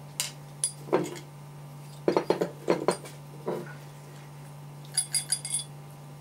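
Steel parts of a hydraulic steering valve knocking and clicking against a steel workbench as it is taken apart: several sharp knocks in the first few seconds, then a cluster of bright ringing metal clinks about five seconds in.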